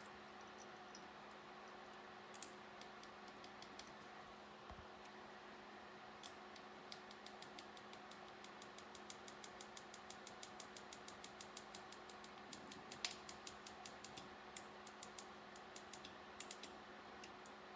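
Light, sharp metallic clicks from a small sterling silver carrot-knife fidget toy, its blade repeatedly pushed out and snapped back. The clicks come in quick runs, about four a second in the busiest stretch, over a faint steady hum.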